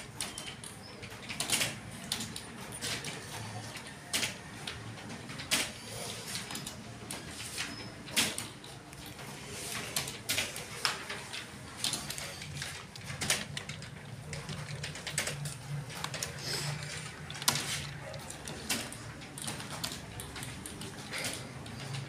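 Slow, irregular keystrokes clicking on a computer keyboard, one or two a second, as a beginner types out a bottom-row typing test.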